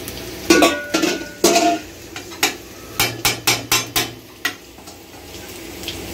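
A long metal spoon stirring rice, meat and water in an aluminium cooking pot, knocking against the pot about ten times, some knocks briefly ringing, with a quick run of knocks around three to four seconds in.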